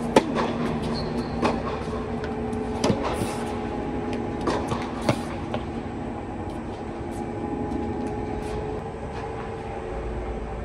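A tennis rally: sharp pops of balls struck by racquets and bouncing on a hard court, about one every second or so, stopping about five seconds in. Beneath it runs a steady machine hum with a few held tones.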